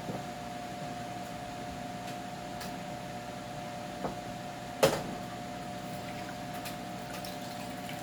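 A steady machine hum with a small knock about four seconds in and a sharper, louder knock just before five seconds, like items being handled during cleaning.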